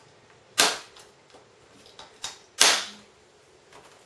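Press-stud components of a Cambridge Brainbox electronics kit being snapped onto the plastic base. There are two sharp, loud clicks about two seconds apart, with a fainter click just before the second.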